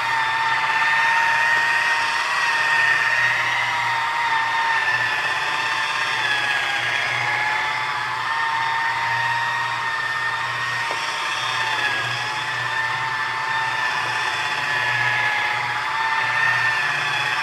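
Chicago Electric variable-speed buffer running at its lowest speed, its damp foam pad working rubbing compound over sanded latex paint. It gives a steady electric-motor whine over the hiss of the pad, and the pitch dips slightly a few times.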